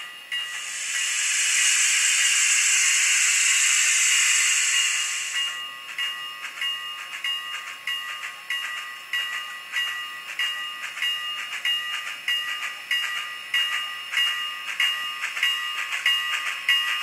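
N scale steam locomotive's DCC sound decoder playing through its tiny onboard speaker as the loco moves off: a burst of steam hiss lasting about five seconds, then a steady rhythm of chuffs. The small speaker gives the sound a tinny, ringing edge.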